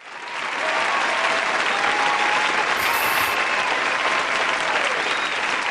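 Audience applause, fading in over the first second and holding steady.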